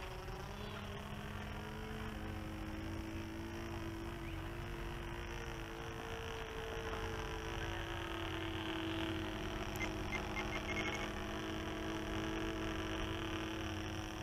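PAW 1cc model diesel engine of a radio-controlled airplane in flight, a steady drone whose pitch drifts slowly up and down as the plane circles.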